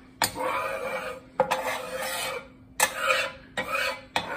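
Kitchen utensil scraping against a bowl or pan: a series of about five scraping strokes, each starting with a click.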